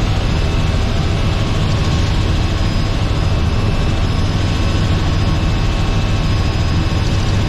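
Robinson R44 helicopter running steadily: a continuous loud rotor and engine drone with a low rumble and a few steady whining tones over it.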